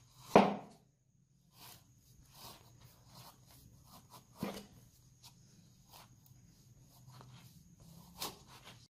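Steel butcher's knife chopping thin strips off the edge of a paper stack, a sharpness test of the freshly sharpened blade: a quick run of faint crisp cuts, with louder knocks of the blade against the table about half a second in, about halfway and near the end.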